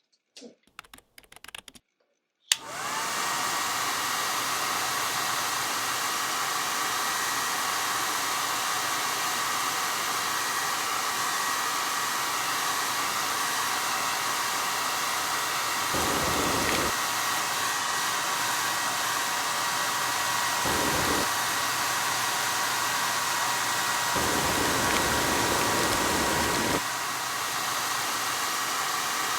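Hand-held hair dryer switched on after a few light clicks, its motor spinning up to a steady whine over a rush of air. The air rush gets louder several times, about halfway through and again near the end.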